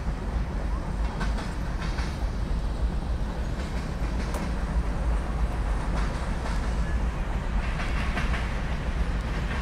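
Loaded BNSF covered hopper cars of a freight train rolling past: a steady low rumble of steel wheels on rail, with scattered sharp clacks as wheels cross rail joints.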